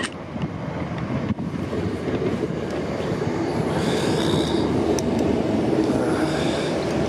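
South Western Railway Class 455 electric multiple unit, an eight-car set, running along the platform, its rumble growing louder, with two brief high squeals about halfway and again near the end.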